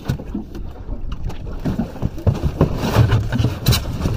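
Styrofoam cooler being handled close to the microphone: the lid scraping, squeaking and knocking against the box, busiest in the second half. Underneath are a steady low rumble from the small boat's engine and wind on the microphone.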